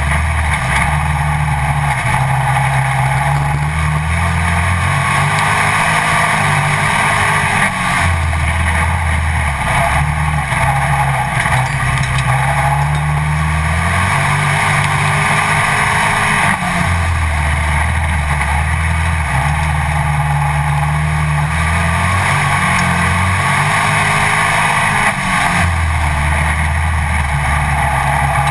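Pro Stock dirt-track race car's engine at racing speed, heard from a camera mounted on the car, its note rising and falling in a repeating cycle every few seconds as it accelerates on the straights and lifts for the turns.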